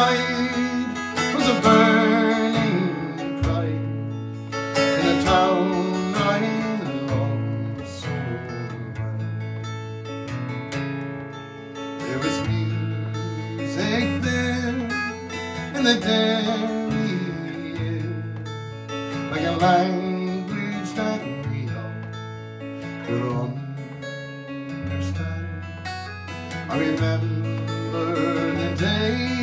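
Acoustic guitar strumming chords in a slow folk ballad, with a sustained sung or played melody over it.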